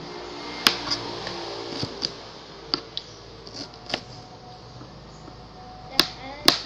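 Kitchen knife slicing pineapple into small pieces, the blade knocking sharply on the cutting board every second or so at irregular intervals. The two loudest knocks come close together near the end.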